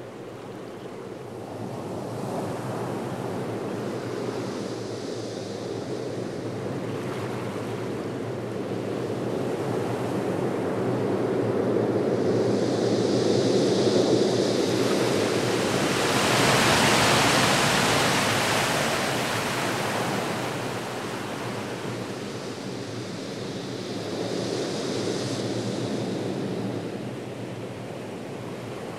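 Ocean surf: a rushing wash of waves that swells and ebbs slowly, with one big surge a little past halfway, over a faint steady low drone.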